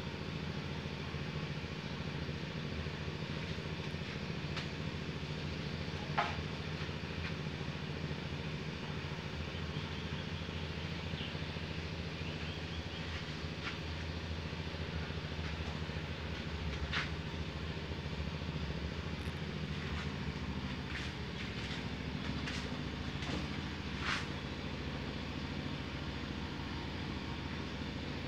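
Steady low hum throughout, with a few short sharp clinks of fired clay roof tiles being set onto a stack.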